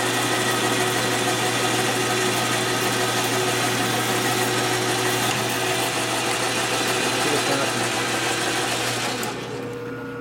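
Milling machine cutting metal with a heavy chip load: a loud, steady cutting noise that stops about nine seconds in, leaving the quieter hum of the running machine.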